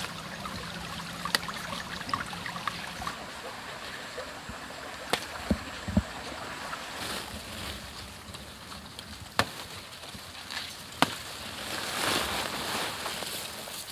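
Leaves and grass rustling as wild leaves are plucked by hand, with several sharp snaps and a couple of dull thumps through the middle. Near the end the rustling swells as the leaves are pushed into a cloth sack.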